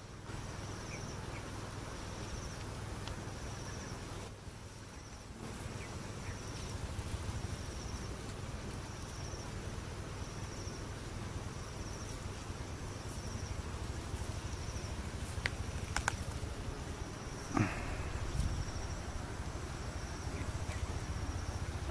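Insects calling in the background: a high, thin call pulsing about once a second, over a steady low rumble, with a knock about three-quarters of the way through.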